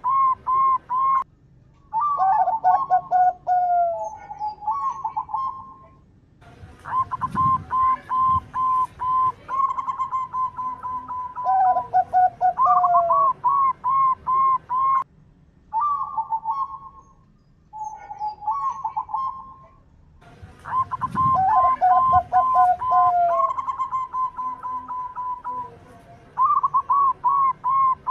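Zebra dove (perkutut) cooing in phrases of quick, evenly spaced staccato notes, some phrases dropping into lower, falling notes, with short pauses between phrases.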